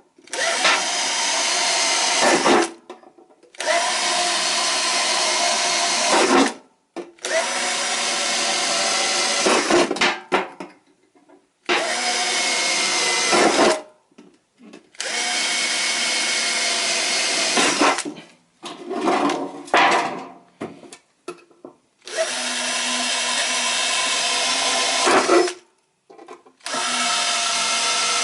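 Electric drill working a metal can, run in bursts of two to three seconds that start and stop sharply, about seven times, with a few short stuttering pulls of the trigger in between.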